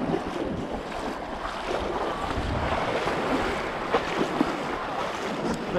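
Shallow ocean surf washing steadily over a sandy beach, with wind buffeting the microphone.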